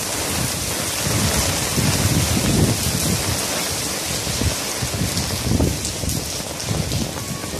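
Steady rain falling on a paved street and parked cars, an even hiss, with uneven low rumbling underneath.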